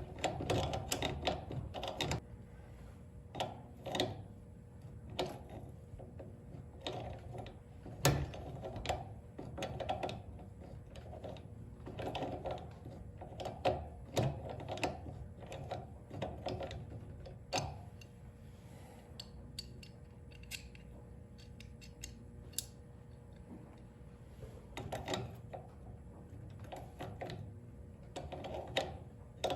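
A small hand tool working the nut on a garage door opener's chain-tensioning bolt: irregular metallic clicks and taps as the tool is repositioned and the nut is turned, with a few sharper clicks.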